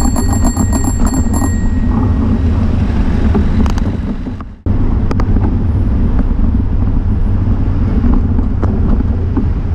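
Heavy wind buffeting on the microphone of a camera mounted on a moving bicycle, over the rumble of city traffic. A bicycle bell rings rapidly through the first second and a half. The sound cuts out briefly about halfway through, then the same rumble resumes.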